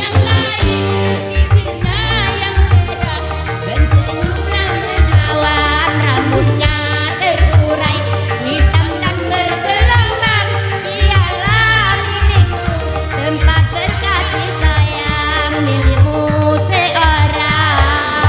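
Live dangdut koplo music: a wavering vocal or melodic line over a heavy, driving drum and bass beat.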